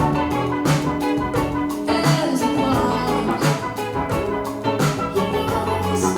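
Instrumental stretch of a pop song, with drums, bass and keyboard, played back through a pair of Cabasse Rialto wireless bookshelf speakers and picked up by a microphone in the room.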